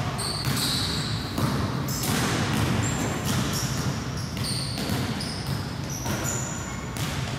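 A basketball being dribbled on a wooden gym floor, its bounces echoing off the hall's walls, with short high squeaks of sneakers on the floor several times.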